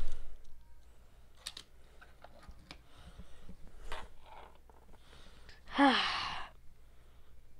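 A bump at the start, then light clicks and taps of a plastic LEGO minifigure being handled and set down on a painted windowsill. About six seconds in, a short vocal sound falling in pitch.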